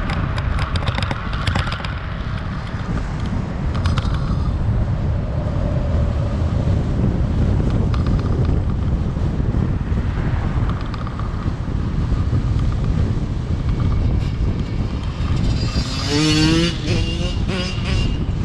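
Steady low rumble of a vehicle driving, with road and wind noise. Near the end, a brief wavering pitched sound rises over it.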